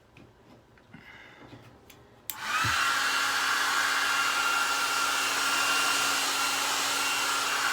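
Handheld hair dryer switched on with a click about two seconds in, then running steadily: a rushing blast of air with a steady whine. Faint handling sounds come before it.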